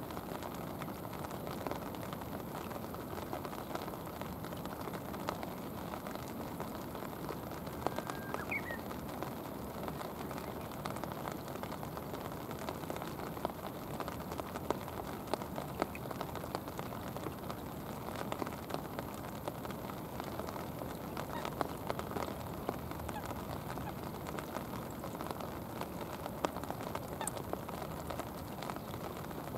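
Steady rain falling on shallow river water and mud: a constant hiss sprinkled with sharp drop ticks. A single short high rising note comes about eight seconds in.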